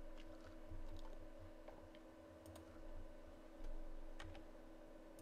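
Faint, scattered clicks of a computer mouse and keyboard, a few irregular taps, over a steady low electrical hum.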